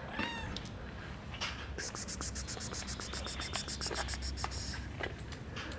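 A kitten meows once, briefly, right at the start. About two seconds in, a high, rapid pulsing trill of roughly seven pulses a second begins and runs for about three seconds. Light clicks and taps sound throughout.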